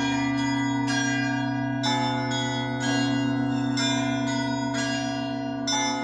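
Russian Orthodox church bells ringing: smaller bells struck in a quick repeating pattern, about two strokes a second, over the steady hum of a large low bell.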